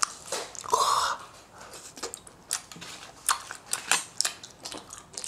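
Chewing a mouthful of tteokbokki rice cakes: a run of short, irregular wet mouth clicks and smacks, with a brief louder sound about a second in.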